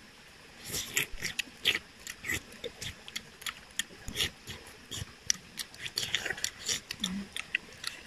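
Snake fruit (salak) being peeled and eaten close to the microphone: an irregular run of crisp crunches, crackles and wet mouth clicks that starts about a second in.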